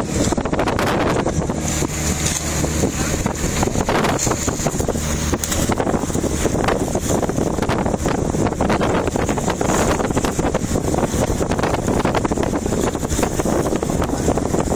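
Wind buffeting the microphone over the steady low hum of a boat's engine.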